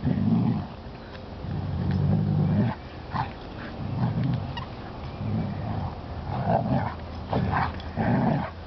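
Dogs play-wrestling, with repeated low growls, some about a second long, and a few short higher yips and snorts between them.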